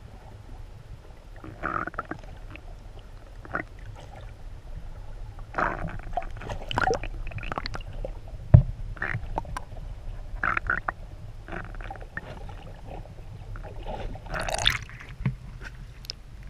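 Muffled underwater sound through a submerged camera's waterproof housing: a steady low rumble with irregular gurgling and sloshing of water. A sharp knock comes about eight and a half seconds in, and a burst of splashing near the end as the camera breaks the surface.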